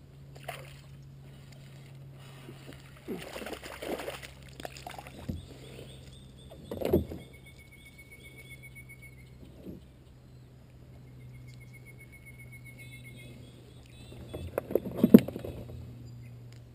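Knocks, clatters and rustles of fishing gear being handled in a kayak, loudest in a cluster near the end, over a steady low hum. A faint high insect trill comes and goes in the second half.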